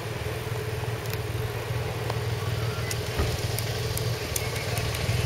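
A motorcycle engine running steadily, with road and wind noise and a few faint clicks.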